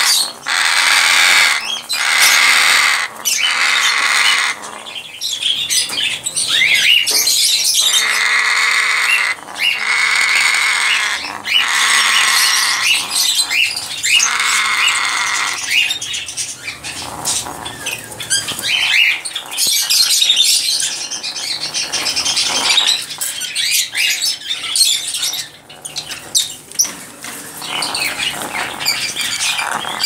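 African grey parrot giving a long run of harsh squawks and calls, each lasting about a second, with short clicks between them.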